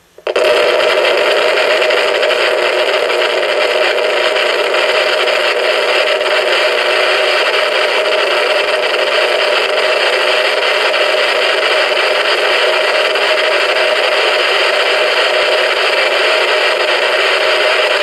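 Clock radio's speaker blaring loud, steady static that cuts in suddenly just after the start. The radio has come on by itself with its alarm set to off, made to fritz out by electromagnetic interference from a Tesla lamp.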